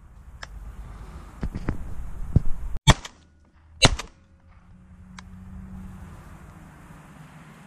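Two shotgun shots about a second apart from a double-barrelled shotgun fired at pigeons. Before them come a few small clicks and rustling as the gun is handled, and a faint low hum runs on after the shots.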